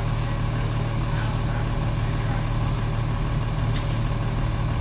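Rollback tow truck's engine idling with a steady low drone; a short hiss about three and a half seconds in.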